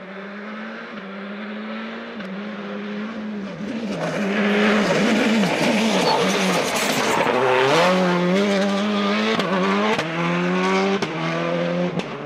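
Citroën Xsara rally car's engine driven hard at a hairpin: it grows louder as the car approaches, the revs swinging up and down through gear changes and braking, with a rush of tyre and gravel noise at its loudest. A few sharp cracks come near the end as it pulls away.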